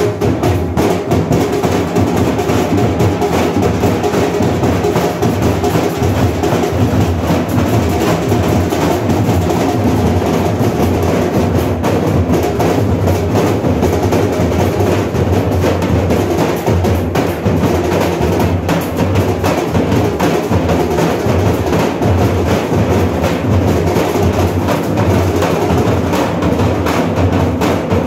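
Dhol drums beaten with sticks in a fast, unbroken rhythm, loud and continuous.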